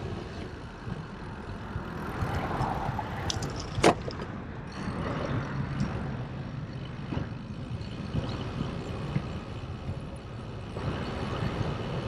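Wind rushing over the microphone of a camera on a moving bicycle, with tyre and road noise and some traffic noise. There is one sharp click about four seconds in.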